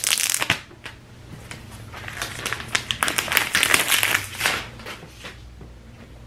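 Plastic shrink wrap being torn open and peeled off a new phone box. It crinkles and crackles in bursts, loudest from about two to four and a half seconds in, then dies away.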